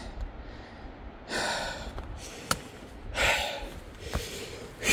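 A hiker breathing hard from climbing a steep trail: three heavy, noisy breaths about every second and a half to two seconds, with a short sharp click about halfway through.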